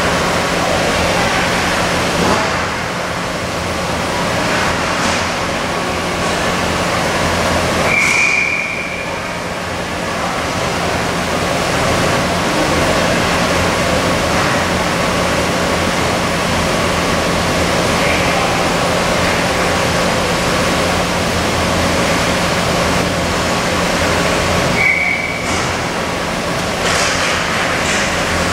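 Ice-rink game ambience: a steady wash of arena noise over a constant low hum. A short referee's whistle blast sounds about 8 seconds in and again near the end.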